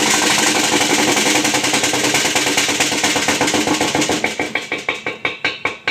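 Whirlpool top-loading washer at the very end of its spin cycle making a pretty horrific, loud rapid knocking clatter over the hum of the spinning tub. Over the last two seconds the knocks space out and slow. The machine has been checked level, so an unbalanced load seems ruled out.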